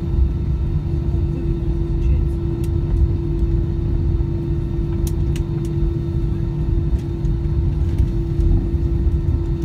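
Cabin noise of an Airbus A320-214 taxiing: a steady low rumble of its CFM56 engines at taxi power and the wheels rolling on the taxiway, with a steady hum and a few faint clicks.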